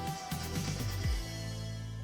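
Background music with no singing: a deep kick-drum beat about twice a second that stops about a second in, leaving a held low chord that slowly fades.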